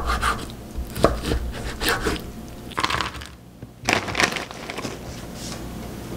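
Kitchen knife knocking on a wooden cutting board as raw chicken breast is diced, a few strokes about a second apart. About four seconds in, a quick clatter of frozen mixed vegetables tipped onto the board.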